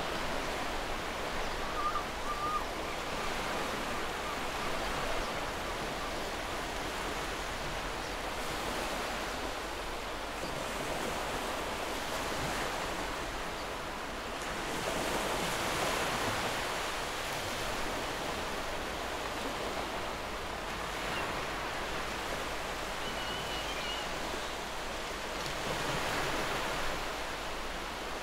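Steady rushing noise like surf, swelling slowly in the middle and again near the end.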